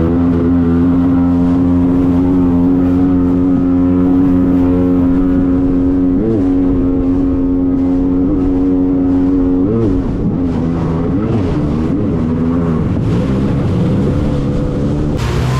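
Jet ski engine running steadily at speed, its pitch holding level and then wavering up and down with the throttle from about ten seconds in.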